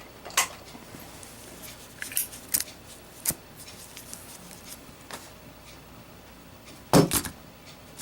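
Handling clicks and knocks of a metal Zippo lighter being set down on a display piece: scattered light clicks, and a louder double knock near the end.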